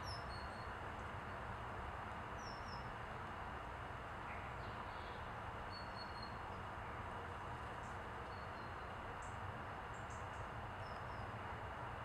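Steady outdoor background hiss with a low rumble, and faint short high chirps of small birds scattered through it, with a few brief high ticks in the second half.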